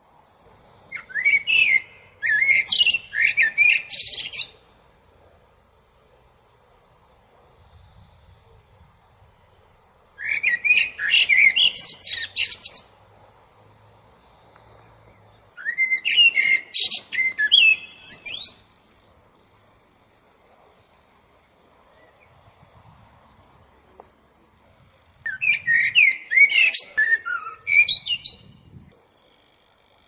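Common blackbird (Turdus merula) singing: four phrases of whistled warbling and high twittering, each about three seconds long, with pauses of several seconds between them.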